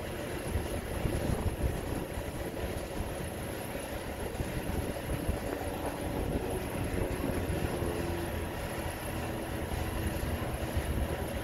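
Heavy truck engine running steadily with a low rumble.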